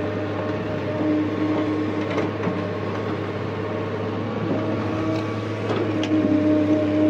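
JCB JS175 hydraulic excavator's diesel engine and hydraulic pumps running steadily under load, the drone rising and falling a little in pitch as the boom swings the bucket between the truck and the dig. A few sharp knocks come in the middle and near the end.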